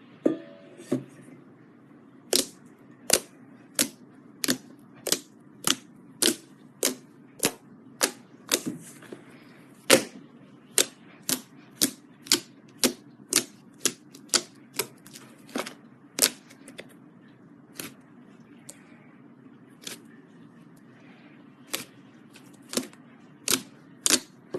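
Glitter slime clicking and popping as it is pressed and worked by hand, a long series of sharp clicks about one every two-thirds of a second that thins to a few spaced clicks in the second half.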